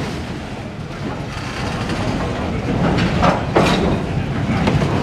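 A CSX autorack freight train rolling past, its wheels giving a steady rumble on the rails. There are a couple of sharper, brief noises about three and a half seconds in.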